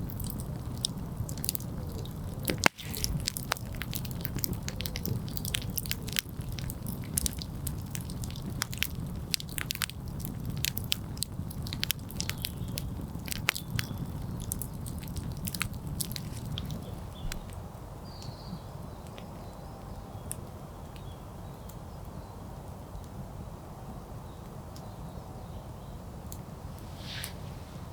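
Wood campfire crackling, with many sharp pops over a low steady rumble of the flames. The pops come thick and fast, with one loud crack about three seconds in, then thin out to a few scattered pops for the last third.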